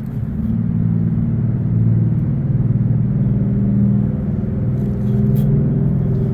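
Steady low engine rumble, like a motor running nearby, with a faint click about five seconds in.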